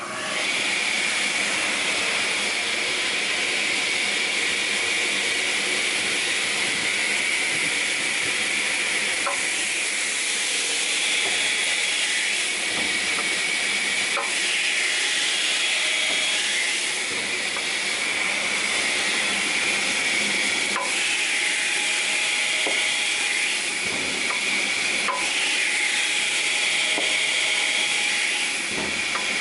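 Cross-cut circular saw running steadily at speed just after being switched on: a continuous high whirring hiss from the motor and spinning blade, with a few faint ticks several seconds apart.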